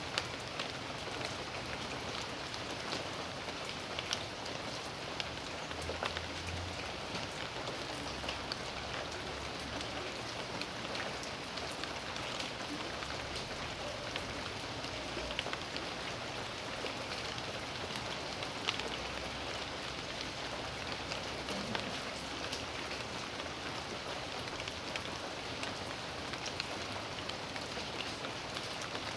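Steady rain falling in a backyard, a constant hiss of rain with many separate drops ticking on surfaces.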